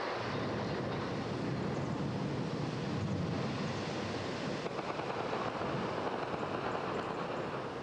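Steady rushing rumble of the stone span of Mostar's Old Bridge and its debris falling into the Neretva river, easing off near the end.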